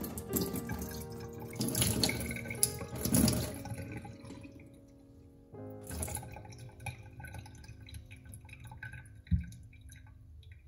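Liquid poured from a glass tumbler splashes over a chrome kitchen faucet spout into a stainless steel sink and drips off it. Background music plays throughout, and a single dull thump comes near the end.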